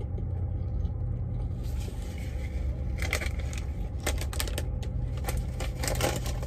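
Crinkling and crackling of a plastic snack bag being grabbed and opened, with many sharp crackles starting about three seconds in. Underneath runs a steady low hum inside the semi-truck cab.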